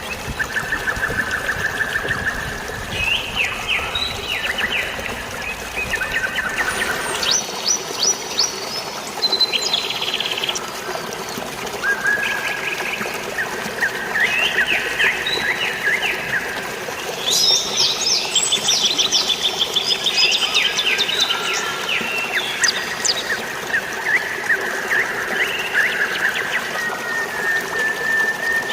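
Several songbirds chirping and trilling, with quick runs of repeated notes that overlap and come and go, over a steady rush of flowing water.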